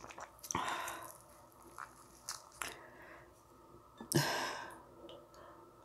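Close-miked eating of spicy ramyun: chewing, with two short slurps of broth from a spoon, about half a second in and about four seconds in, and a few light clicks in between.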